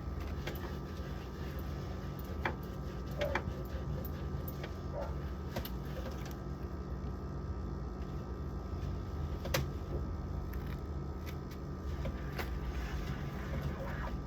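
Scattered light knocks and clicks of food containers and items being handled while clearing out a refrigerator, over a steady low hum.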